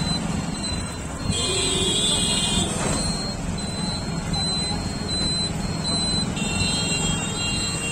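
Jammed street traffic at a railway level crossing: motorcycle and car engines running in a steady rumble. A high tone sounds twice, for about a second and a half each time, and a short high beep repeats several times between them.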